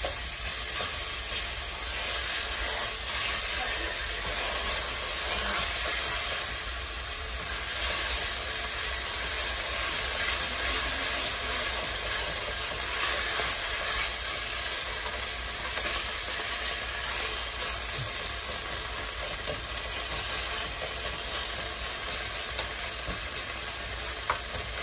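Butter and cream cheese sizzling steadily in a pan on the stove as they melt into the base of an Alfredo sauce.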